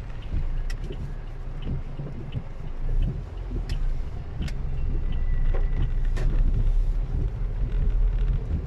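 Vehicle running with a steady low rumble and a few scattered sharp ticks.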